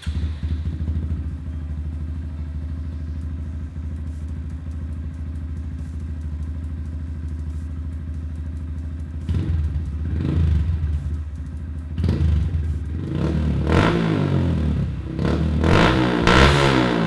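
A 2017 Honda Grom's 125 cc single-cylinder engine, breathing through a Yoshimura RS-2 full stainless exhaust with a carbon-fibre canister, catches and idles steadily. About nine seconds in it is revved with throttle blips, and a run of repeated revs follows in the last few seconds.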